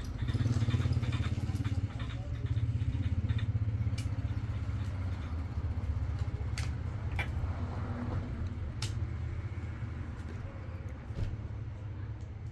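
A motor vehicle's engine runs with a steady low rumble that slowly fades, with a few faint light clicks.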